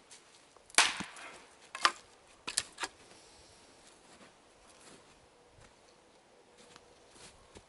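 Dry sticks cracking and clattering, sharpest about a second in, followed by three or four lighter knocks within the next two seconds.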